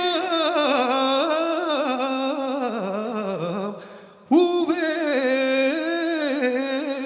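A man singing a slow ballad in Serbian, drawing out a long note with a wavering vibrato, then taking a short breath about four seconds in before holding another long note.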